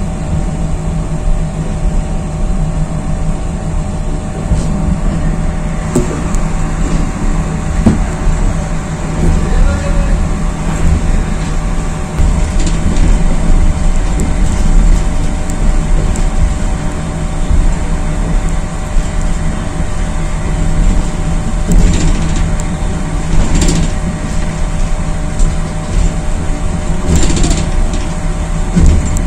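Passenger train heard from inside its coach while pulling out slowly: a steady low rumble with a constant hum, and a few short knocks from the running gear.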